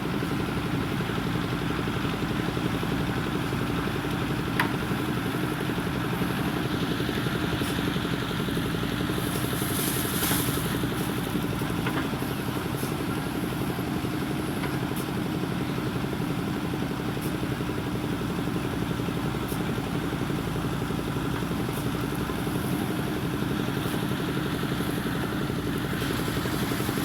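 Diesel engine of a JCB 3DX backhoe loader running steadily, with a sharp click about four and a half seconds in and a brief hiss around ten seconds in.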